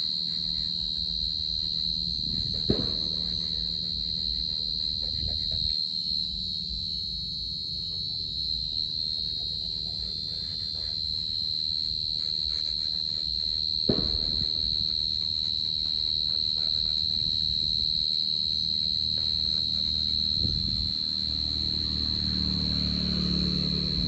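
Cricket trilling steadily at a high pitch without a break. There is a sharp click about three seconds in and another about fourteen seconds in, and a low hum swells near the end.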